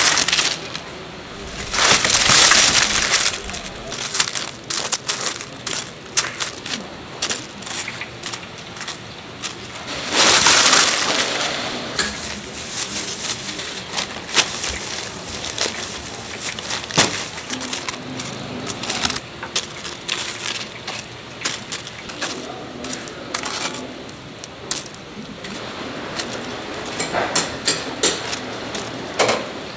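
Food-stall handling sounds: metal tongs clicking and clattering and paper rustling as fried croquettes are picked up and piled on paper-lined trays, with two longer, louder stretches about two and ten seconds in.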